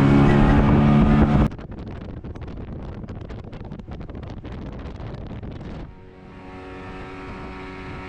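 Motorboat running at speed, with wind buffeting the microphone. The sound cuts abruptly about a second and a half in and again near six seconds, and the last stretch is a steady engine note.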